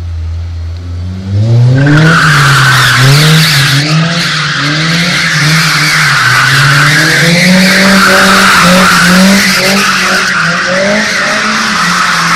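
A car engine revs hard from idle about a second in, its pitch rising and falling over and over. The tyres squeal loudly and without a break as the car slides and spins on the pavement.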